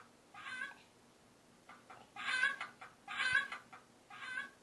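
A chicken clucking in a series of short, spaced-out bursts, about four of them.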